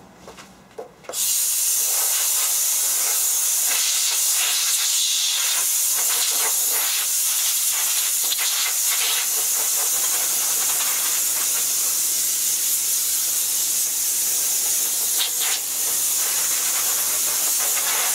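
Compressed air blowing from a blow gun on a rubber air hose: a steady, loud hiss that starts about a second in, blowing copper milling dust off the printer bed.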